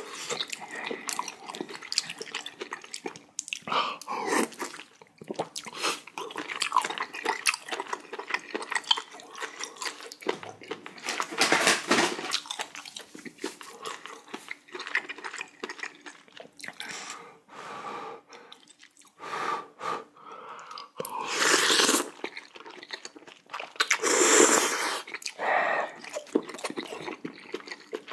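Close-miked eating of spicy jjamppong: wet chewing and mouth clicks throughout, with louder slurps of noodles or broth a little after a third of the way in and twice near the end.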